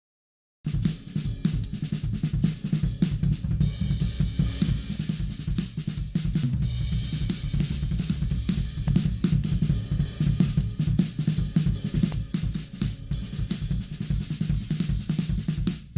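Drum kit recording played back during mixing: kick, snare, hi-hat and cymbals in a steady groove, starting suddenly out of silence about half a second in.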